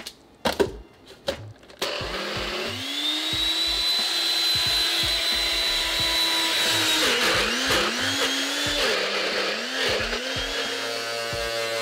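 Nutribullet personal blender blending ice, water and protein powder: a few clicks as the cup is handled, then about two seconds in the motor starts with a rising whine that settles into a steady, loud, saw-like whir. From about seven seconds its pitch dips and recovers several times as the blades work through the frozen mix.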